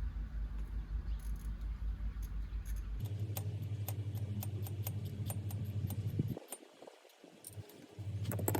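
Scattered light metallic clinks and taps of hand tools on metal parts, over a steady low hum.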